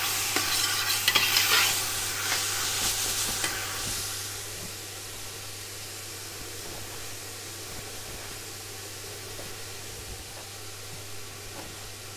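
Diced onions frying in oil in a large stainless-steel pot, a metal slotted spatula scraping and stirring through them for the first few seconds, then a steady sizzle. The onions are starting to brown.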